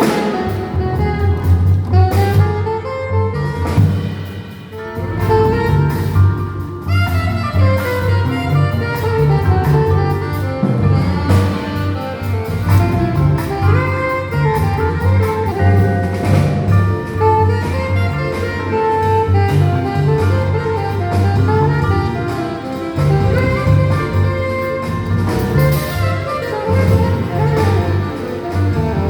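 Live jazz combo playing, with a steady bass line underneath and a busy melody of quick notes on top.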